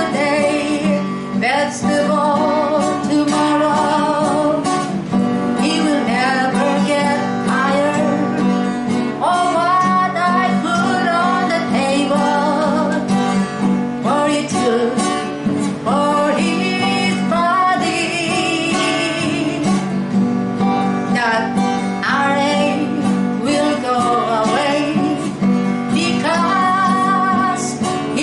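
A woman singing a worship song, accompanying herself by strumming an acoustic guitar.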